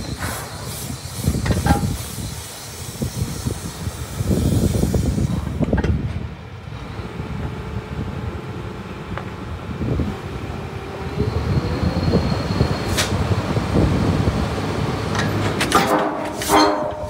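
Crawler crane's diesel engine running steadily with a low rumble, broken by a few scattered sharp metal clanks and a brief higher-pitched sound near the end.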